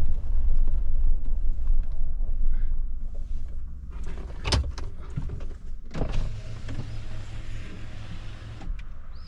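Car cabin with low road rumble that eases off, then a click and an electric power window motor running with a steady hum for about three seconds, stopping near the end.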